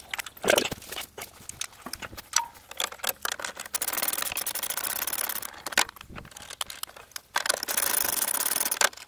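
Socket ratchet wrench clicking rapidly in two runs of a second or two each as it backs off the bolts of a sawmill's sheet-metal cover. A few light metal clinks of loose nuts and bolts come before the runs.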